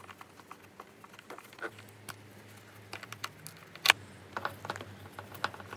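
Screwdriver undoing the screws of a motorcycle's plastic airbox cover: scattered small clicks and scrapes, with one sharp click about four seconds in.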